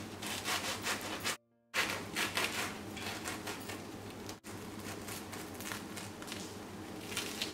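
Knife sawing back and forth through crisp toasted sandwich bread on a wooden board: a fast run of rasping, crunching strokes, several a second, with a short break about a second and a half in.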